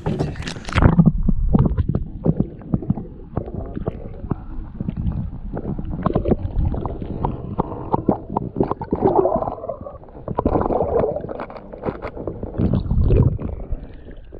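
Water sloshing and gurgling as a freshly caught fish is held in the water to be released, with irregular knocks and a low rumble throughout.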